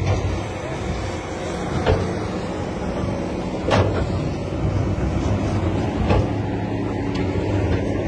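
Earthmoving machinery running: a steady low diesel engine rumble, broken by three sharp knocks or clanks.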